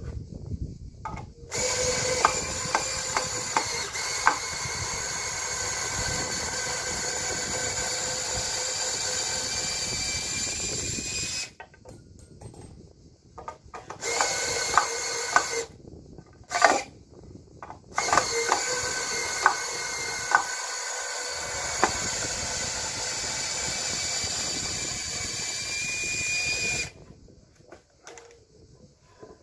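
Electric power tool motor running at a steady speed in three long bursts, the first about ten seconds and the last about nine, with clicks and knocks between the runs.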